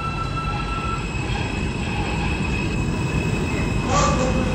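R160 subway train pulling out of the station: a steady rumble of wheels on rail under the steady high whine of its traction motors, growing slowly louder. A short, sharp metallic squeal comes about four seconds in.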